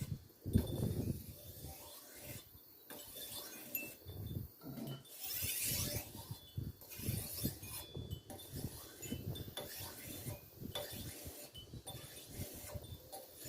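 Machete blade stroked repeatedly across an oil-lubricated sharpening stone, an uneven run of short rubbing scrapes as the tip is honed.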